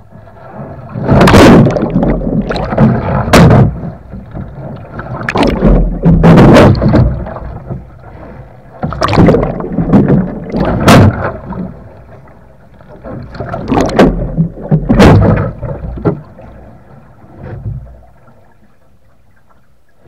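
Water splashing and rushing over a sea kayak's deck as the boat capsizes and is rolled back upright, heard as loud surges with sharp splashes. They come in four or five bursts and die down to a low wash near the end.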